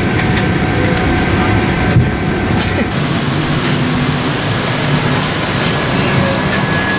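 Cabin noise inside a Boeing 737-800: a steady low rumble from its CFM56-7B engines and the airflow, with a couple of light clicks and a low hum that comes in near the end.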